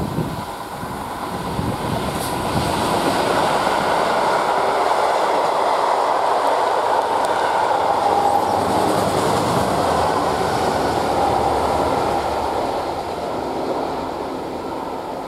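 Diesel-hauled freight train passing: the locomotive's engine and the wagons' wheels running over the rails. The sound builds over the first few seconds, holds steady while the covered wagons go by, and fades near the end.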